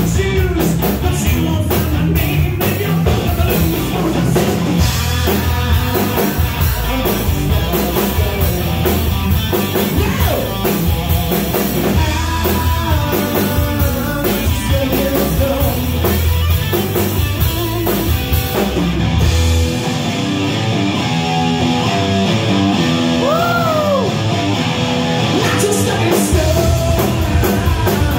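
Live rock band playing electric guitar, electric bass and drum kit. About two-thirds of the way through, the bass and drums drop out for several seconds, leaving the guitar with a note bent up and back down, before the full band comes back in near the end.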